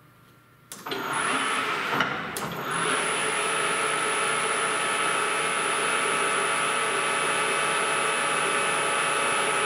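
Metal lathe starting up under a second in, with a few clicks and knocks as it comes up to speed, then running steadily with an even motor-and-spindle hum and a high, steady whine.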